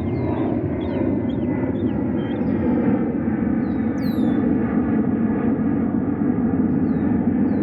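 Steady low rumble with scattered bird calls over it: short falling chirps in the first few seconds, then a sharp call sweeping steeply down in pitch about four seconds in.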